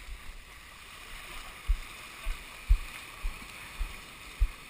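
Dull low thumps, about two a second in walking rhythm, starting a little under two seconds in, from a GoPro in its housing jolting as it is carried by someone walking barefoot. Underneath is a faint steady hiss of small waves washing over the sand.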